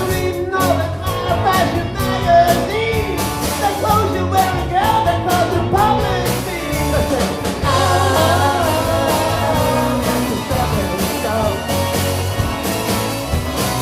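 A live band playing a rock-and-roll number, with a bending lead melody over steady bass and drums.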